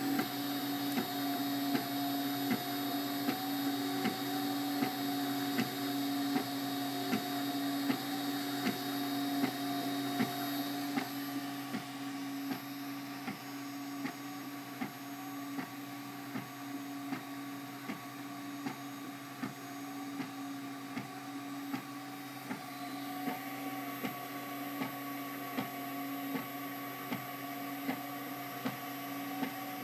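MakerBot Replicator 3D printer running a print: a steady hum from its motors and extruder cooling fan, with short regular ticks about twice a second as the print head moves.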